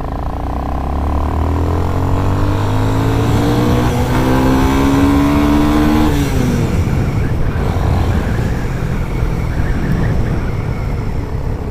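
Motorcycle engine accelerating, its pitch climbing steadily for about six seconds. It then drops abruptly as the throttle eases or the gear changes, and the engine runs on under road and wind noise.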